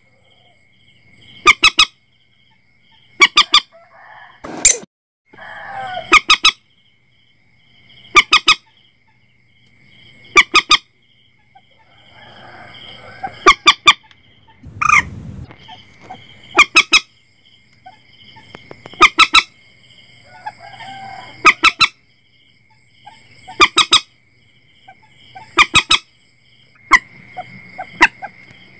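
Common moorhen calls, loud and short, given in quick clusters of two or three and repeated about every two seconds. A steady high-pitched background tone runs throughout.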